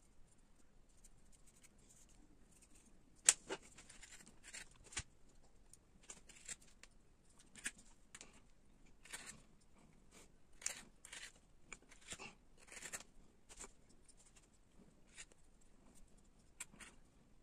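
Scattered faint knocks and short scraping strokes of a linden wood block, a pencil and carving tools being handled on a wooden tabletop. The sharpest knock comes about three seconds in.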